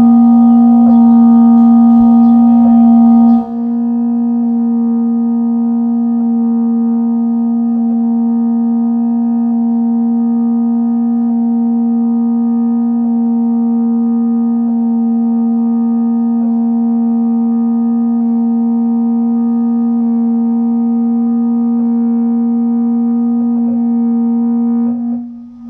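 Feiyutech G5 gimbal's motors giving off a loud, steady hum at one unchanging pitch, a little louder and harsher for the first few seconds. This is the abnormal motor noise the gimbal makes on and off, a fault it has had since it was bought.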